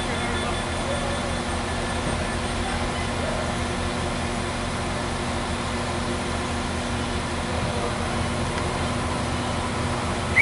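A NIR CAF 4000 Class diesel multiple unit standing at the platform with its engines idling: a steady diesel hum with several steady tones over a low rumble. A short, sharp high-pitched tone sounds right at the end.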